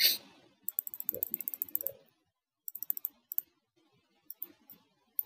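Computer mouse and keyboard clicking: a sharp click at the start, then a quick run of about a dozen clicks, then a few short groups of clicks.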